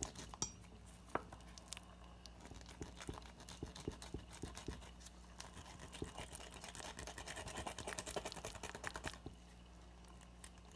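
Faint scratchy rubbing, small clicks and tearing of a gloved hand pulling fat off a raw rack of ribs, busiest toward the end and dying away about nine seconds in.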